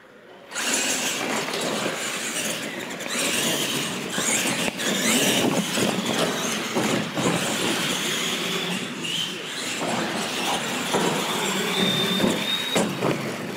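R/C monster trucks launching and racing on a smooth concrete floor, their tyres squealing and motors running. The sound starts suddenly about half a second in.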